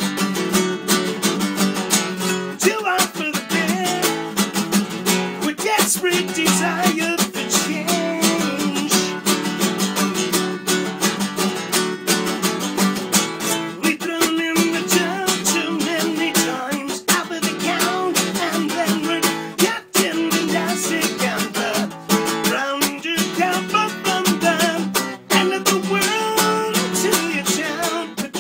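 Nylon-string classical guitar strummed rapidly and continuously, the strokes coming thick and fast, with two short breaks in the second half.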